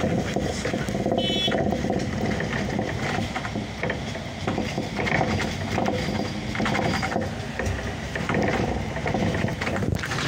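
Interior of a Solaris Urbino 18 articulated city bus on the move: steady running noise with constant rattling and clicking from the body and fittings, and a brief high tone about a second in.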